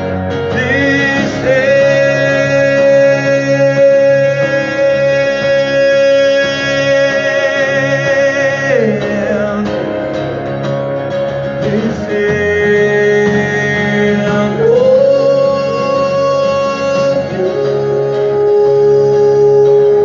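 Music: a plucked guitar accompaniment under a melody of long held notes with vibrato that slide from one pitch to the next.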